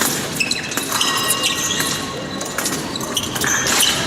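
Épée blades clinking against each other during a bout, several sharp metallic contacts with short ringing tones, among thuds of fencers' feet on the piste in a large hall.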